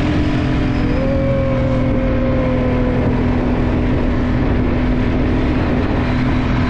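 ATV engine running at a steady speed while the quad is driven across sand, its drone holding an even pitch throughout.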